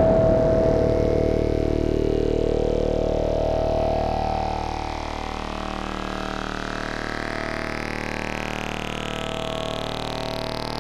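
Electronic synthesizer drone of many held tones, with a slow sweep rising steadily in pitch throughout. It eases to a lower level about four seconds in.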